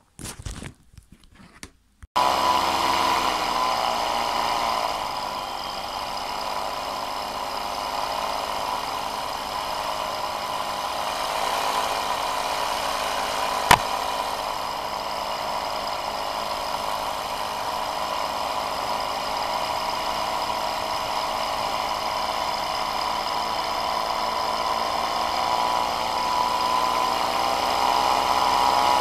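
Engine of a powered paraglider trike running steadily in flight, with wind noise; it cuts in abruptly about two seconds in. A single sharp click about fourteen seconds in.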